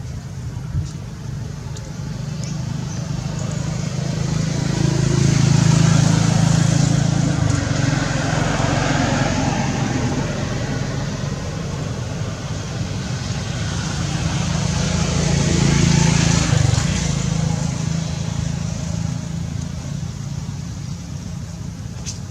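Road traffic: a vehicle engine and tyre noise swelling and fading twice, loudest about six seconds in and again about sixteen seconds in.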